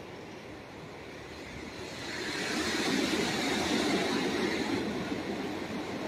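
Surf of small, calm-sea waves on a sandy beach: a steady rushing wash that swells about two seconds in as a wave breaks and runs up the sand, then eases a little.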